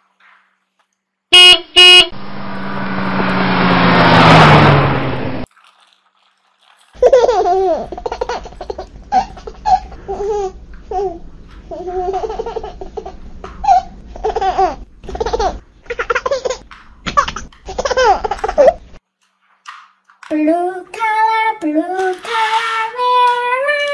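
Electronic sound effects from a battery-operated plastic toy racing car: two short horn beeps, a rushing sound that swells for about three seconds and cuts off, then a long stretch of recorded baby laughter and babble, and a short melody near the end, all tinny through the toy's small speaker.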